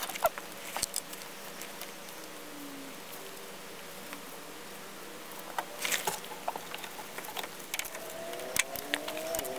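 Scattered metallic clicks and knocks of an automotive air-conditioning compressor being handled and fitted to the engine from beneath the car, with a cluster of knocks about six seconds in. A faint humming tone in the background grows slightly louder near the end.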